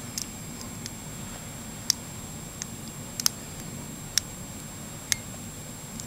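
Small sharp metallic clicks, irregularly spaced about one a second, from a hook pick pushing up the serrated pin stacks inside an American Lock Series 80 padlock: the little clicks of pins being lifted toward the shear line under tension.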